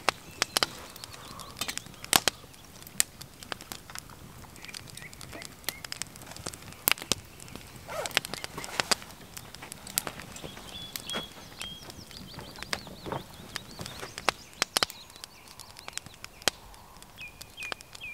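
Campfire of slightly damp firewood crackling, with irregular sharp cracks. A small bird chirps briefly a few times in the background.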